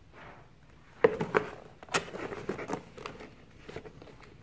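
A plastic tool case holding a drill-bit set being handled and opened: a few sharp clicks about a second in, a louder snap near two seconds, then light clicking and rattling of the case and its bits.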